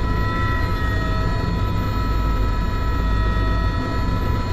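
Helicopter cabin noise in flight: a steady heavy rotor and engine rumble with a high turbine-like whine of several steady tones over it.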